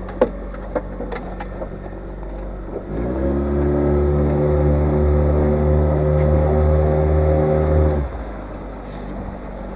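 Boat motor hum under a low steady idle. About three seconds in a motor quickly winds up to one steady pitch, holds for about five seconds, then stops sharply.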